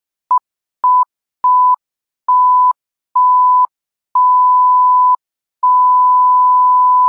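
Electronic beeps at one steady pitch, seven in a row, each longer than the one before, the last held about a second and a half. Each beep starts and stops with a slight click.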